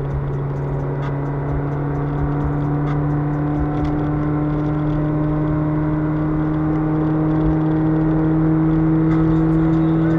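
Toyota Vios four-cylinder engine running through a broken exhaust pipe, a rally-car-like exhaust drone that climbs slowly in pitch and gets a little louder as the car gently accelerates.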